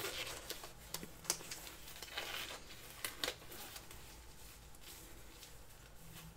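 Faint, scattered light clicks and handling rustles, with two sharper clicks about a second in and about three seconds in.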